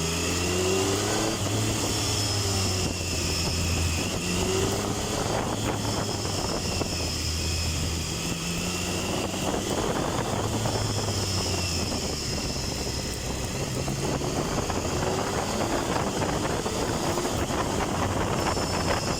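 Triumph Tiger 1050's three-cylinder engine running under way, its revs rising and falling again and again as the throttle is worked.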